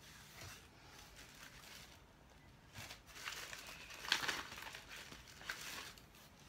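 Plastic crinkling and rustling in scattered bursts, with a sharp click about four seconds in: hands handling nylon cable ties and their plastic packaging while fastening wire-mesh panels together.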